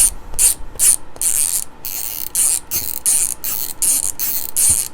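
Hand tool working on a multimeter's small screws and plastic case: a run of short rasping, ratchet-like strokes, about two or three a second.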